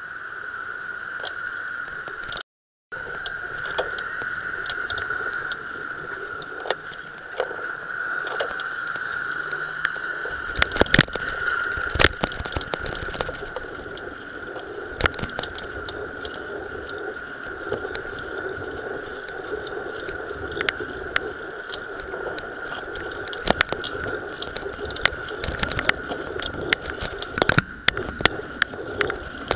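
Riding noise from a camera mounted on a moving bicycle: steady road and wind noise with a constant high hum. From about ten seconds in come frequent irregular knocks and rattles as the bike and mount jolt over the asphalt. The sound drops out for a moment near the start.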